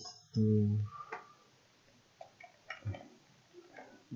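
A few scattered keystrokes and clicks on a computer keyboard, spaced irregularly. A short low hum from a man's voice comes about half a second in.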